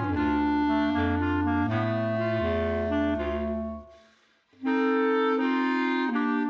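Clarinet trio, two clarinets and a bass clarinet, playing held chords over a moving low bass line. The music breaks off for about half a second a little after four seconds in, then comes back in with a new held chord.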